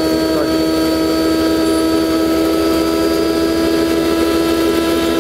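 Electric flour-mill grinder (aata chakki) running steadily at full speed while grinding maize into fine flour: a constant hum with a rushing noise, no change in pitch.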